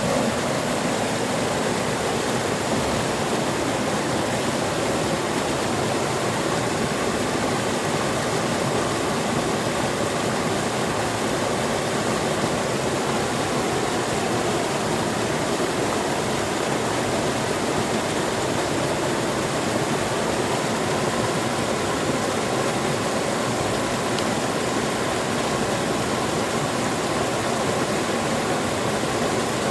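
Waterfall: falling water rushing steadily, an even, unbroken roar.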